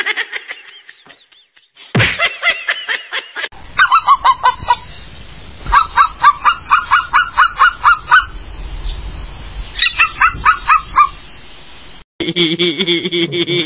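A cat chattering: bursts of short, rapid chirping calls, about five a second, broken by brief pauses. At the start, cats give a few calls that rise and fall in pitch.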